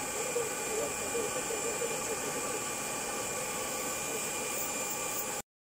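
Electric nail drill and a compact pedicure dust-extractor fan running together during heel filing: a steady whooshing hiss with a thin, high, even whine. It cuts off abruptly near the end.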